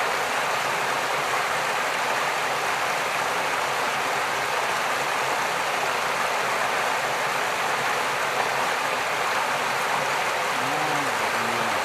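Steady rush of flowing stream water; a faint voice briefly near the end.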